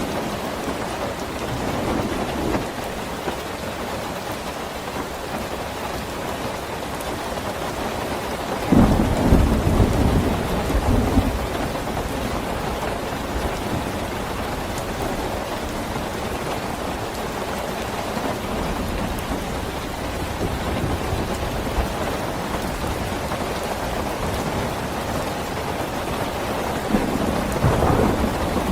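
Steady rainfall with thunder rumbling twice: a louder roll about nine seconds in that lasts a couple of seconds, and another near the end.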